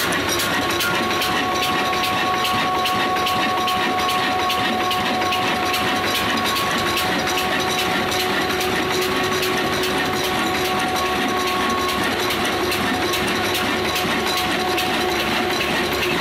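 Old Ruston Hornsby-type stationary diesel engine running steadily, with a fast, even knocking beat of about five strokes a second. A steady whine runs alongside it.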